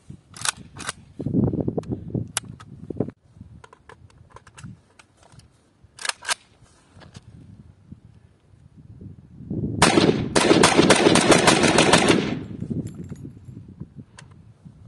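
Kalashnikov Saiga .223 (5.56x45) semi-automatic rifle firing: a few separate shots in the first seconds and a pair around six seconds in, then a fast string of rapid shots about ten seconds in that lasts some two seconds.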